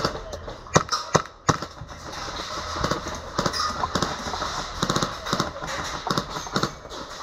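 Airsoft guns firing single shots at irregular intervals, several sharp cracks clustered in the first second or two and more through the rest.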